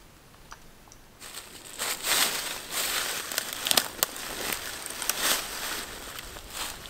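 Dry leaves and twigs rustling and crackling on the forest floor as the seated hunter shifts about, with several sharp snaps, starting about a second in.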